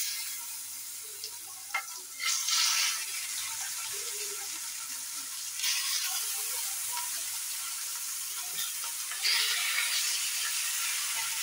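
Marinated chicken pieces sizzling as they fry in hot oil in a pan, a steady hiss that swells louder a few times, with a short clack about two seconds in.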